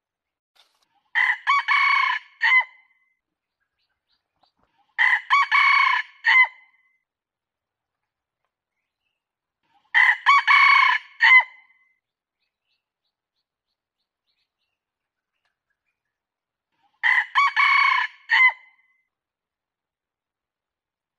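Red junglefowl rooster crowing four times, a few seconds apart. Each crow is short and ends in a clipped final note. It is a recorded lure call used to draw wild junglefowl.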